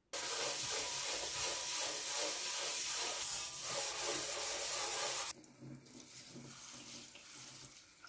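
A dish brush scrubbing a wet stainless steel sink basin, bristles rasping against the metal in repeated strokes. The rubbing is loud until about five seconds in, then goes on more quietly.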